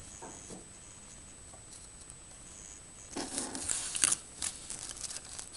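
Scratchy rustling and clicks from handling the soldering iron and perfboard, starting about three seconds in and lasting a couple of seconds, with one sharp click at its loudest.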